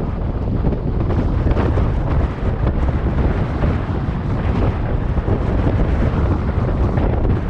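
Strong wind buffeting the microphone: a loud, steady, low rumble of noise.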